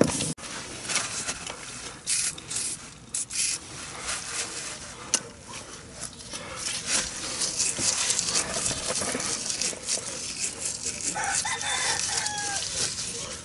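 Rag and steel wool scrubbing and scraping inside a rusty leaf spring eye, with scattered clicks. A rooster crows near the end.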